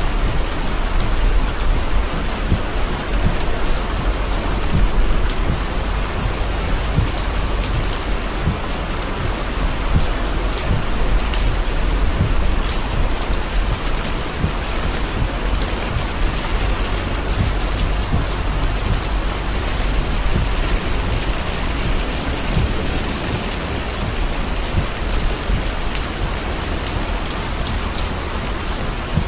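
Torrential rain drumming on a car's roof and windshield, heard from inside the car: a dense steady hiss full of small drop impacts, over a steady low rumble.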